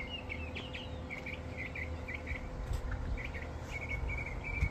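Small birds chirping in quick, irregular bursts of short notes over a low steady rumble of outdoor air, with a single sharp knock near the end.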